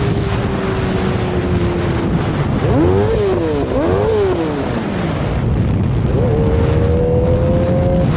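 Kawasaki ZX10R inline-four with an Arrow aftermarket exhaust, under way. The engine holds a steady note, then blips up and down twice in quick succession about three to four seconds in. It pulls up steadily in pitch near the end.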